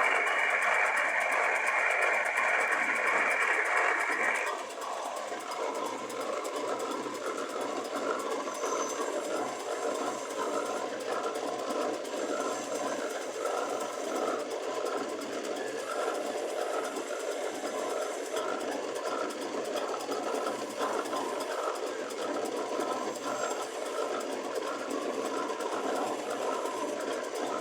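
Machine tool running while cutting a forged aluminium piston. A loud, steady cutting sound stops about four and a half seconds in, and the machine keeps running more quietly with a faint regular pulse.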